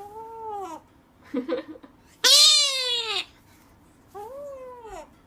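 Meowing calls: three drawn-out meows that rise and fall in pitch, the second and loudest about halfway through, with a short stuttering sound between the first two.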